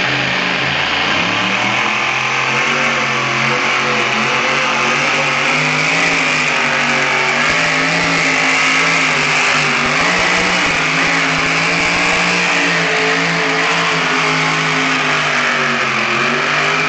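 Pulling truck's engine running hard and steady under load as it drags the weight-transfer sled down the track, its pitch wavering slightly.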